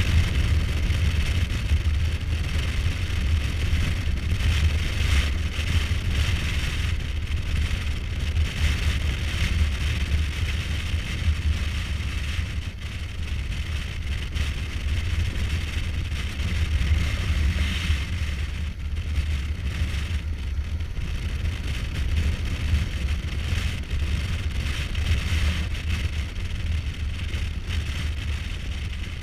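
Kawasaki Versys 1000 with its inline-four engine running at a steady road speed on a dirt road, mostly heard as wind rushing and buffeting on the microphone, with the engine and tyres on the gravel underneath.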